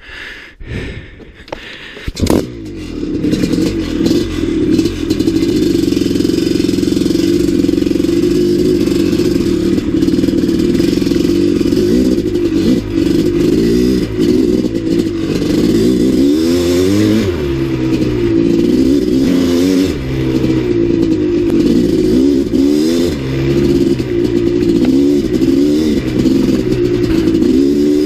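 Maico 700 two-stroke single-cylinder dirt bike engine picking up about two seconds in, then running under load, its pitch rising and falling as the throttle is worked, with clatter from the bike.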